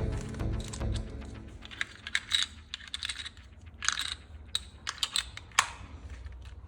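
Irregular light plastic clicks, taps and crackles, as of plastic toy parts being handled and snapped together. Background music plays under the first second.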